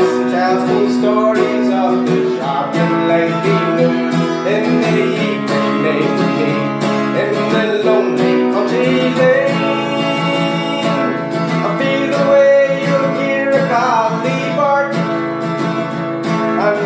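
Folk song on acoustic guitar, held chords under a melody line that slides between notes.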